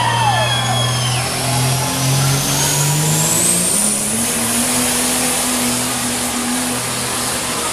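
Diesel pickup truck engine under full load pulling a sled. The revs climb in steps over the first four seconds and are then held high, with a high whine rising alongside.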